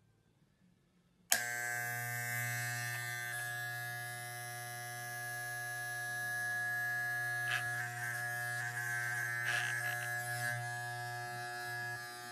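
Electric hair trimmer switched on about a second in, then buzzing steadily as it is run along a man's jaw.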